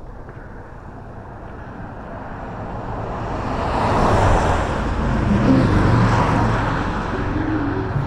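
Highway traffic passing close by: a vehicle's tyre and engine noise swells up over a few seconds, is loudest around the middle, then eases off a little, with a low engine hum in the second half.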